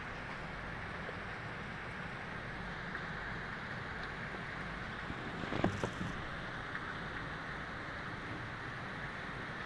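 Steady rain falling, an even hiss with a low rumble beneath. A brief cluster of louder taps comes about five and a half seconds in.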